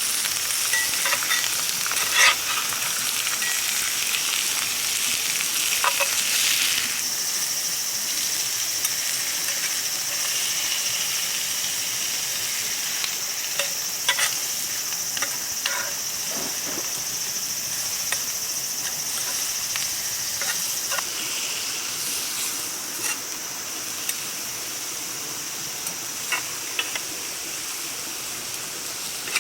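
Food sizzling as it fries in a pan: a steady hiss with occasional sharp clicks.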